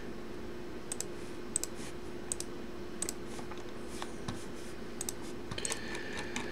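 Computer mouse clicking, several short scattered clicks about one a second, over a faint steady hum.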